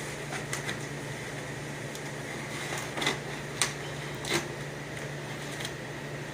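A few short, scattered rustles and clicks of packaging being handled, over a steady low hum.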